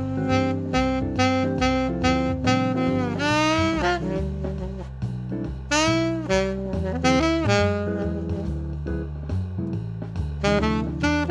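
Martin Committee III alto saxophone playing a jazz melody line of quick notes, with a few notes bent or slurred downward, over a bass line underneath.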